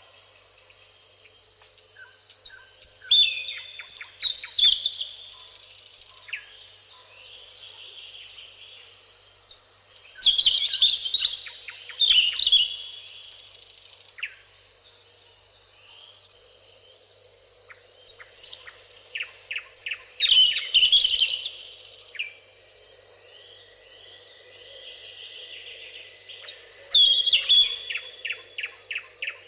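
Several wild birds singing together. One loud song phrase returns every few seconds over quieter chirps and trills from other birds, above a steady high-pitched whine.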